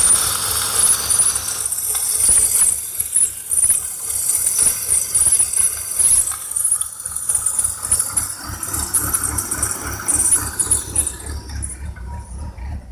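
2003 BMW 325i's straight-six idling roughly with a loud, wavering hiss, the engine chuckling and stumbling unevenly as if about to stall. The hiss fades away about a second before the end while the uneven idle carries on.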